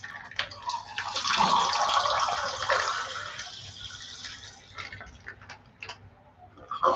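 Water poured from a plastic water sachet into a plastic cup: a splashing stream starting about a second in, strongest for about two seconds and then tapering off, followed by a few small clicks.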